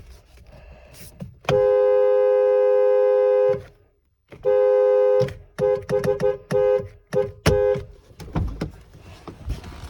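Ford truck's two-note horn: one long blast of about two seconds, a second shorter blast, then a run of quick short toots.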